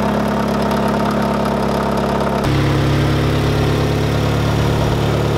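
Mazda Miata's four-cylinder engine idling with its timing belt too loose. About two and a half seconds in it changes abruptly to the same engine idling with the belt tensioned correctly.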